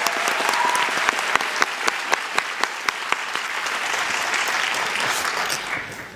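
Concert audience applauding, with single claps standing out in the dense clapping, which dies away near the end.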